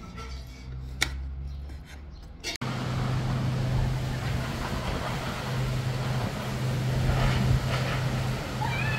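Steady road traffic noise with a constant low engine hum, cutting in abruptly a few seconds in after a quiet stretch with a single click. A short high call glides up and down near the end.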